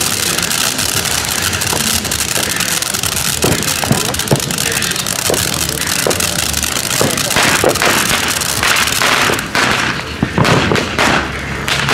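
Ground fountain firework spraying sparks with a steady hiss, crackling pops growing denser over the second half.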